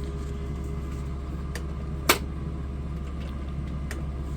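Steady low hum of a running power generator, with a few light clicks and one sharper knock about two seconds in.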